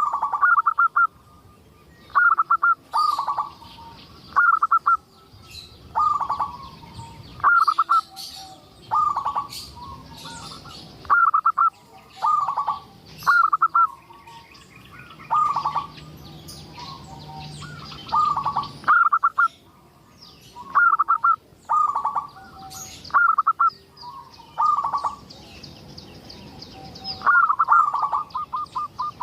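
Zebra dove (perkutut) cooing: short, loud, stuttering coo phrases repeated about every second or so, with fainter higher-pitched chirping above them.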